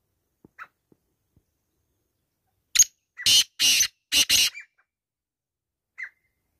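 Male black francolin calling: a loud, harsh call of about five grating notes lasting under two seconds, near the middle. It is preceded and followed by a faint short chirp.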